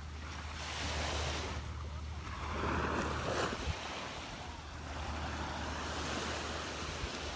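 Small Gulf surf breaking and washing up onto a sandy beach, the wash rising and falling every few seconds. A low steady rumble of wind on the microphone runs under it.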